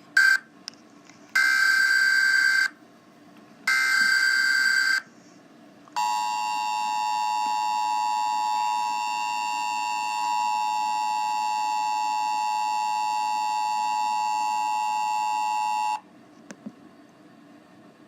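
Emergency Alert System tones. A brief burst, then two buzzy data-header bursts of a bit over a second each, then the two-tone attention signal held steady for about ten seconds before it cuts off: the start of an EAS test alert.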